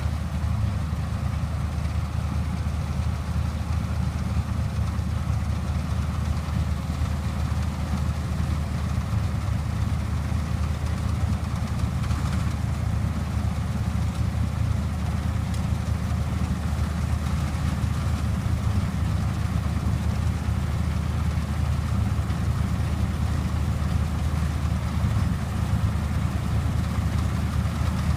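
John Deere 630 combine harvester running steadily while harvesting wheat: a constant low engine drone with a fainter mechanical hum above it.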